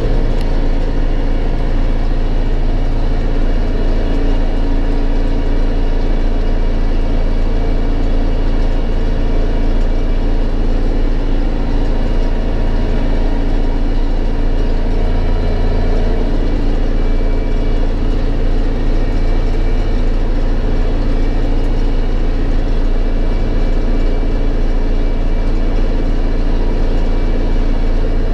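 Belarus MTZ-2022.3 tractor's diesel engine running steadily under load while cultivating a field, heard from inside the cab.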